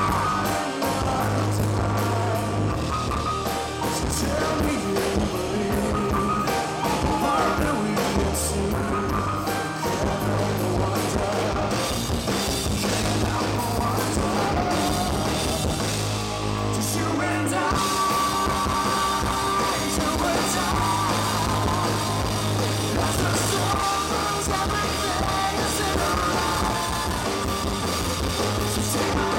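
Live rock band playing, electric guitars and bass, with a male lead vocalist singing into a microphone.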